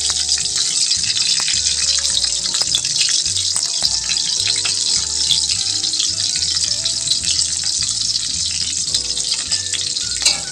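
Shallots, garlic and chilies sizzling in hot oil in a wok: a steady frying hiss dense with small crackles and pops.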